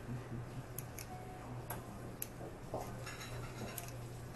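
Poker chips being handled at the table, a scattering of light, irregular clicks, over a low steady hum.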